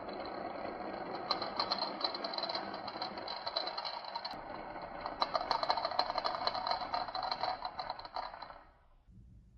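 Marbles rolling and clattering down a wooden marble run: a steady rattle of many rapid clicks that grows busier in the middle, then dies away near the end.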